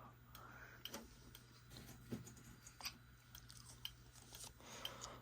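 Faint, scattered clicks of a computer keyboard and mouse, several of them at irregular intervals, over a low steady hum.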